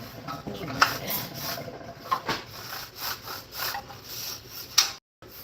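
Irregular rubbing and scraping strokes, as of scrubbing a refrigerator during cleaning, with a few sharp knocks, the loudest about a second in and just before the end.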